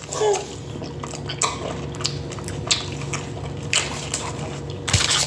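Close-up mouth sounds of eating: biting and chewing fast food, with irregular wet clicks and crackles and a louder burst near the end.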